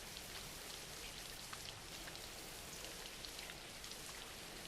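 Soft, steady rain falling, with small scattered drops ticking on a surface.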